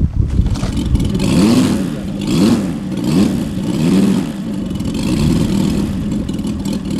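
Engine of a 1/3-scale radio-controlled Mitsubishi A6M Zero model running, its throttle opened and closed about five times in quick succession so the pitch rises and falls with each blip.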